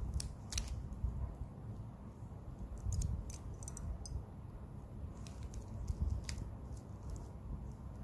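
A plastic 3x3 mirror cube being turned by hand, its layers clicking and clacking in irregular clusters of sharp little clicks, over a steady low rumble.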